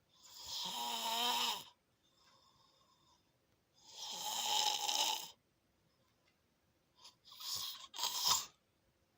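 Loud snoring: two long rattling snores about three seconds apart, then a shorter snore in two quick parts near the end, with faint breaths between them.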